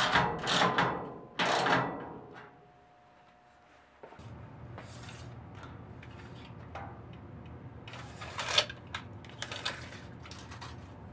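Scraping and clattering of hands and tools on a sheet-steel lathe stand, then scattered clicks and short rattles as a steel tape measure is stretched across it. A low steady hum runs underneath from about four seconds in.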